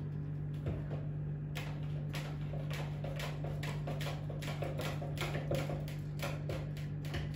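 Fan oven running with a steady low hum, and light irregular ticking, about two or three ticks a second, starting about a second and a half in.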